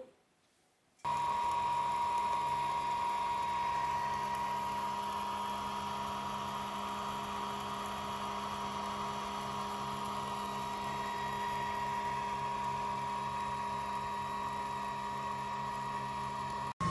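JICCODA 10-watt diode laser engraver running while it etches layout lines into painted sheet metal: a steady high whine over a low hum that starts about a second in and holds even until it cuts off just before the end.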